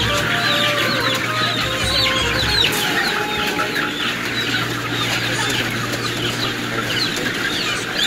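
Dense chorus of many caged poultry calling at once: short, high, falling calls overlapping without a break, over a steady low hum.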